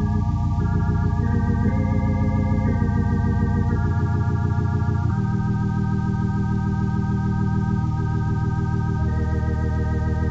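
Organ playing slow, held chords with a wavering vibrato, moving to a new chord every few seconds.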